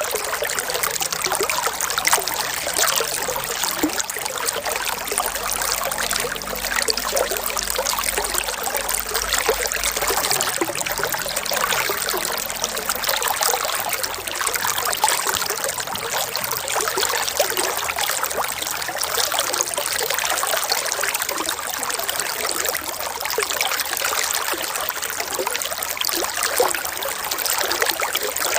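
Water in a stream trickling and babbling steadily, a dense patter of small splashes with no break.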